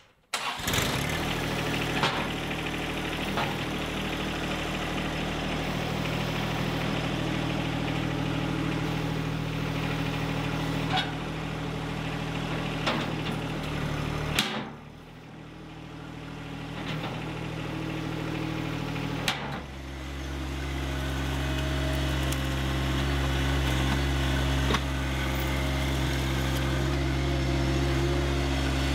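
John Deere 1025R compact tractor's three-cylinder diesel engine running steadily, with a few sharp clicks along the way. About two-thirds of the way through, its note changes and it runs louder.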